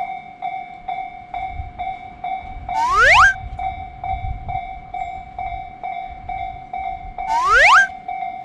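Japanese level-crossing warning bell ringing in a steady electronic clang, about two strikes a second. Twice, about four seconds apart, a loud rising whistle-like sweep sounds over it, each lasting about half a second.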